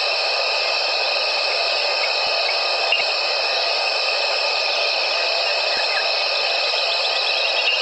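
Steady evening chorus of insects, a dense, unbroken high-pitched trilling hiss made of several overlapping pitches.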